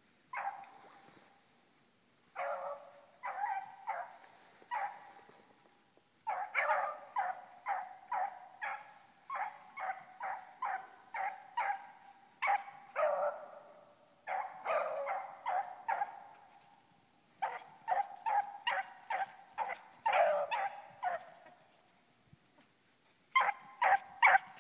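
Beagles giving tongue while running a rabbit: runs of short, repeated barks broken by brief pauses, with a loud burst of barks near the end.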